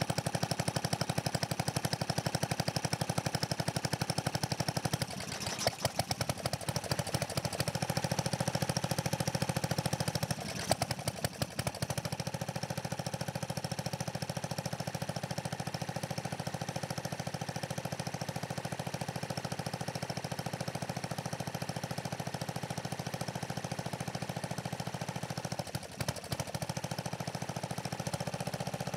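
12 hp Briggs & Stratton flathead engine on a riding mower running with a rapid, even firing beat, cold on its first start since fall. Its beat falters and dips briefly about five seconds in, again around ten to twelve seconds, and near the end.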